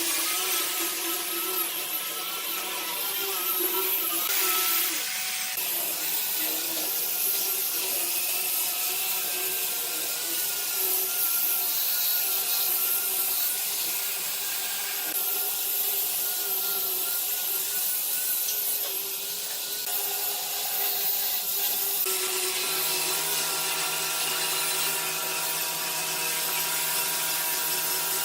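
Electric power tool running on wood: a steady motor whine with a hiss of cutting or abrading that shifts in pitch a few times.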